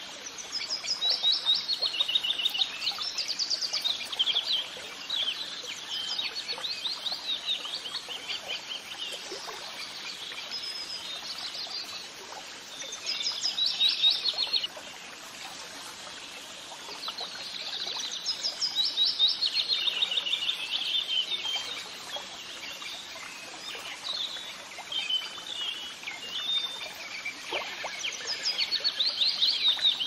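A small songbird singing in phrases of rapid chirps and trills, each phrase lasting a few seconds with short pauses between.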